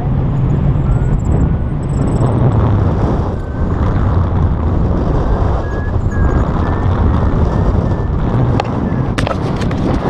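Loud, steady wind rush buffeting an action camera's microphone on a selfie stick during a banking paraglider flight. A few sharp knocks near the end as the camera is handled.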